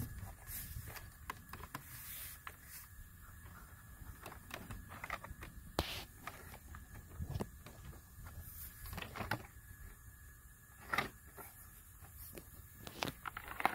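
Plastic car-door trim panel being handled and positioned against the door: scattered light knocks, clicks and rubbing, the sharpest about six and eleven seconds in. A faint steady high tone runs underneath.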